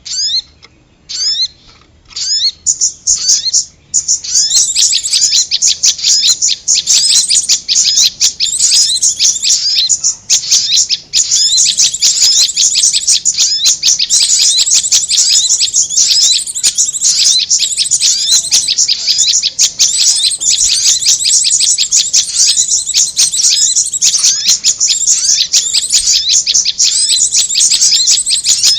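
Prenjak (prinia) calls in a bird-trapping lure recording. A few separate sharp chirps come first, and then, about four seconds in, a dense, rapid, unbroken run of high chirps sets in and continues.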